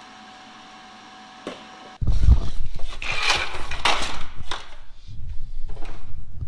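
Faint steady hum, then after a cut about two seconds in, loud rubbing and irregular knocking from a handheld camera being carried and jostled.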